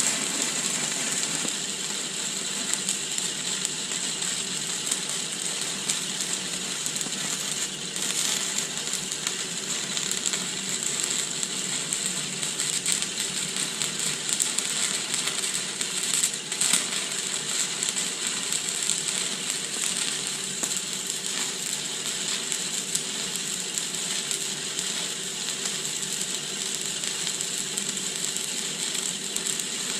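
Stick (shielded metal arc) welding with a 6013 electrode on a root pass: the arc crackles and sizzles in a steady, dense hiss.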